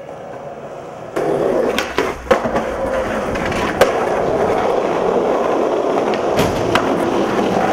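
Skateboard wheels rolling on smooth concrete, a steady rumble that grows louder about a second in. Several sharp clacks of the board come through it, the loudest just under four seconds in.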